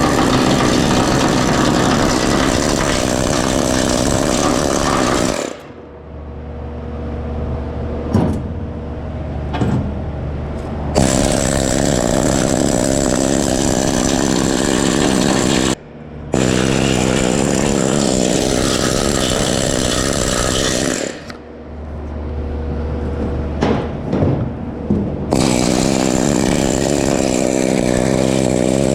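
Pneumatic needle scaler chattering against steel as it chips weld slag off, running in long bursts with two pauses of several seconds. In the pauses a low hum and a few sharp clicks are left.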